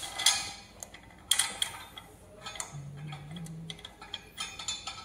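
Metal clicking and scraping as an oxygen regulator's wing-handle connector is turned by hand onto a medical oxygen cylinder's valve, in three short bursts: just after the start, about a second and a half in, and near the end.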